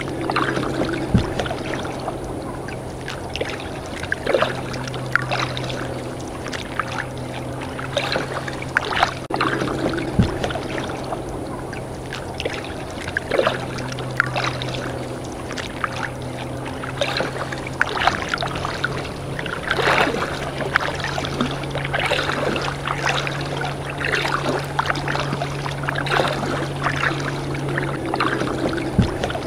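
Kayak paddling: the paddle blades dip in and out of calm water, splashing and dripping in irregular strokes. A steady low hum runs under it.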